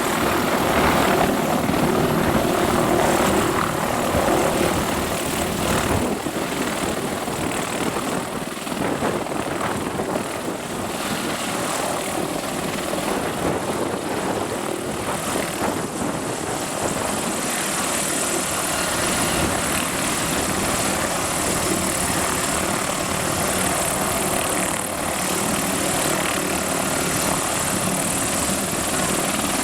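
Mi-28 attack helicopter running at close range, its main rotor blades swishing over the steady noise of its twin turboshaft engines. The sound is loudest in the first few seconds, then settles, and a high turbine whine grows stronger past the middle.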